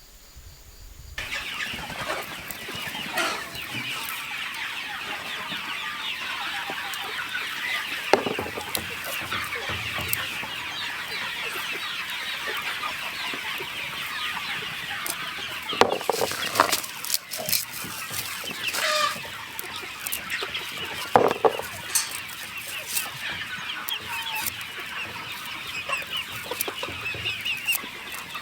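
A flock of chickens clucking and calling, a dense chatter of many birds that starts about a second in, with louder single calls from individual birds standing out every few seconds.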